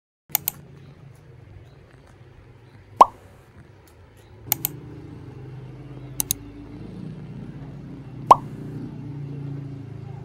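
Three loud plops, like water drops, a few seconds apart, with quick pairs of clicks between them, over a soft low hum.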